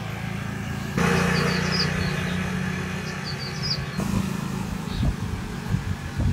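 Motor scooter engine running with a steady low hum, with short high chirps in the middle.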